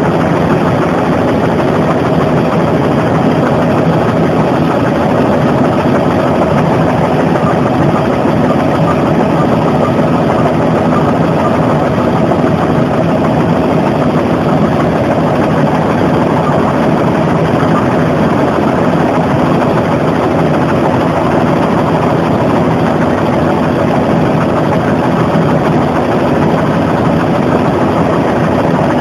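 Bell JetRanger helicopter in steady flight, heard from inside the cabin: the turbine engine and rotors run as a loud, even noise with a few faint steady hum tones under it.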